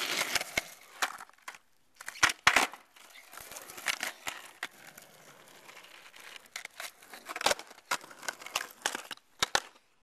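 Skateboard on asphalt: wheels rolling with a gritty rasp, broken by sharp clacks and knocks of the board and the camera being handled. The sound cuts off shortly before the end.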